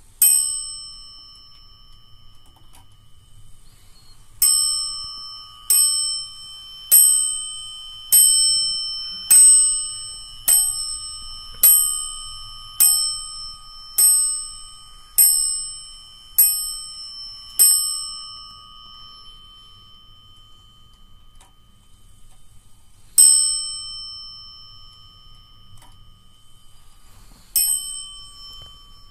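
Warmink 8-day Zaanse wall clock striking twelve on its bell: twelve ringing strikes about 1.2 seconds apart, each left to ring on. One single strike sounds shortly before the run and two more near the end.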